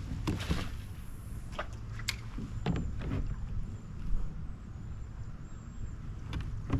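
Scattered knocks and clatters of things being handled in a kayak, over a low steady rumble.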